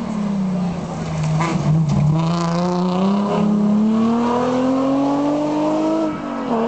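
Rally car engine under hard acceleration. The revs fall at first, then climb steadily for about four seconds and drop sharply near the end at a gear change.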